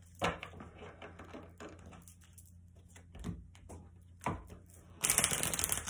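Oracle cards being shuffled by hand: soft scattered clicks and taps of the cards, with a louder, denser riffle near the end.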